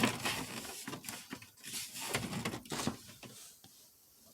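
Plastic steering-column trim being handled and pushed into place: a string of light, irregular clicks and knocks that die down after about three seconds.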